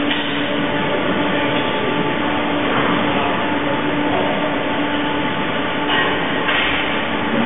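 Rotary milking parlour machinery running: a steady mechanical hum and rumble with a constant low tone, broken by a few brief hissing rushes.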